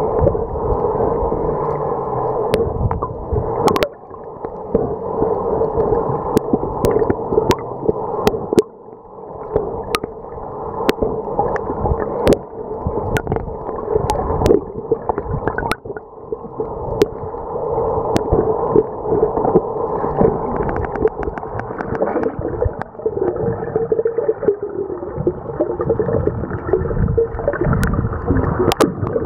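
Muffled underwater sound picked up by a camera held below the surface: water sloshing and gurgling, with scattered sharp clicks.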